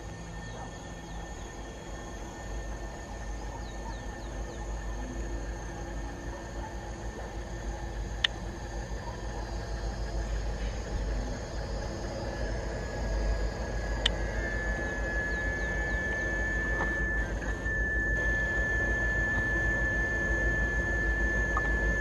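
Low rumble of an approaching freight train's two EMD SD70LC diesel-electric locomotives, growing steadily louder, over a steady high thin whine that strengthens about two-thirds of the way through, with a couple of sharp clicks.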